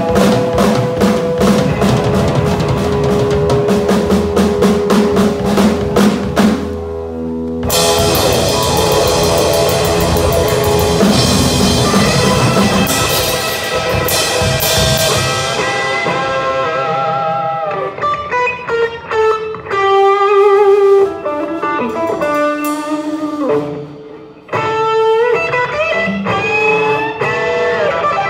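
Live electric guitar and drum kit playing rock: busy drumming under the guitar for the first several seconds, a short break, then a loud passage led by crashing cymbals that rings out. In the last third the guitar plays a solo of separate, bent notes over only occasional drum hits.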